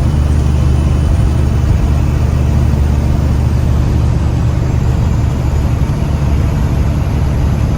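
Steady engine and road rumble of a vehicle driving at a constant speed, heard from inside the cab: a loud, even low drone with no change in pitch.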